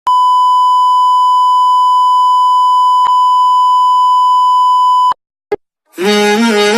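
A steady, high electronic beep tone held for about five seconds, then cut off sharply. After a short silence with one brief blip, music starts near the end.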